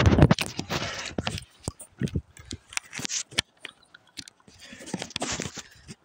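Irregular crunching, scraping and knocking handling noises, loudest in the first second and again about five seconds in.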